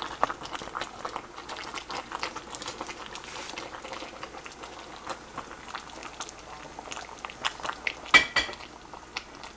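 Pot of turkey wings in broth boiling on the stove, a steady crackle of bubbling and popping, as sliced onions are dropped in at the start. About eight seconds in, a brief louder clink.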